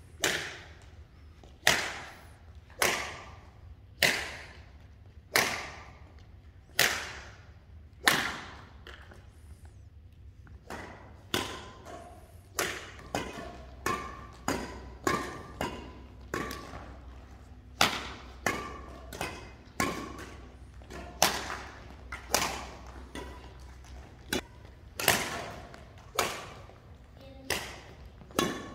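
Badminton racket strings hitting a shuttlecock again and again, each sharp hit echoing in a large hall. The hits come about once a second at first, quicken to about two a second in the middle, then slow again, over a low steady hum.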